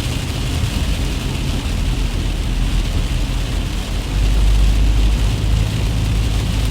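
Heavy rain and road noise heard from inside a moving car: a steady rushing hiss over a deep low rumble that grows louder about four seconds in.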